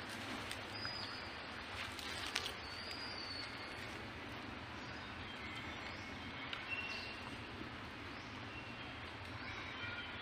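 Birds chirping, short high calls scattered over a steady background hiss, with a few light clicks about two seconds in.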